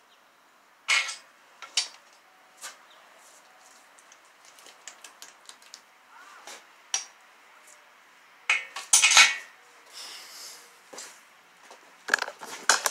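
Metal hand tools and hardware clinking and clattering in scattered sharp clicks, with louder flurries about a second in, around nine seconds in and near the end.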